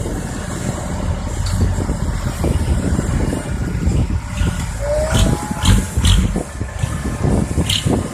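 Heavy diesel machinery from an excavator loading a dump truck, running steadily. A short rising squeal comes about five seconds in, then a run of sharp clanks or scrapes near the end.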